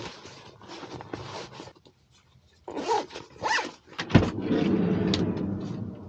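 Clothes rustling as a backpack is packed, then a zipper pulled in several quick strokes. About four seconds in a latch clicks and a van's sliding side door rolls open.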